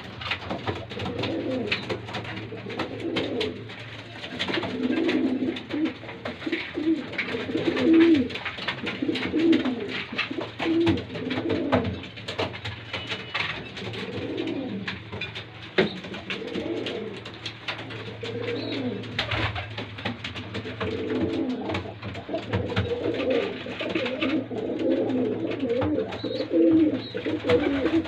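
A flock of domestic fancy pigeons cooing continuously, many coos overlapping, with scattered sharp clicks throughout.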